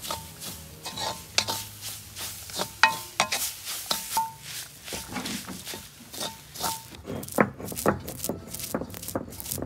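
A coconut-shell spoon scraping and stirring scraped coconut as it toasts in a clay pot. About seven seconds in, a stone roller starts rolling back and forth over peppercorns on a flat grinding stone, in repeated rough strokes.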